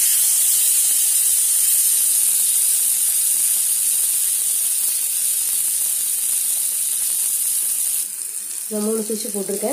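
Oil sizzling steadily under marinated pomfret pieces frying on a lightly oiled nonstick tawa. The sizzle drops suddenly about eight seconds in.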